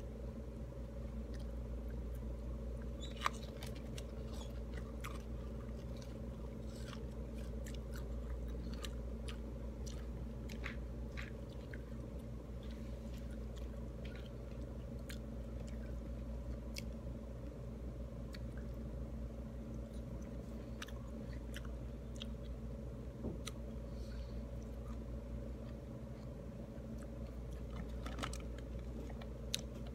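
Close chewing and wet mouth clicks of someone eating pomelo segments, small soft clicks scattered unevenly throughout. Under it runs a steady low hum.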